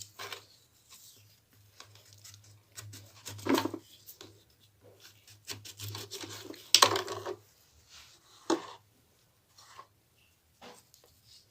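Salted lemons being pushed and squeezed down into a jar by hand: irregular rubbing, scraping and squishing, with three louder bursts, the loudest about seven seconds in.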